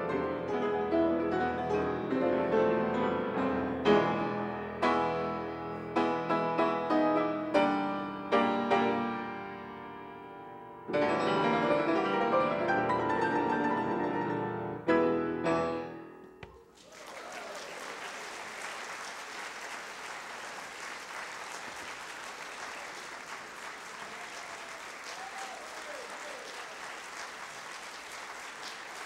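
Classical piano four-hands on a grand piano, with two players at one keyboard; the piece ends in a run of struck chords about sixteen seconds in. The audience then applauds steadily.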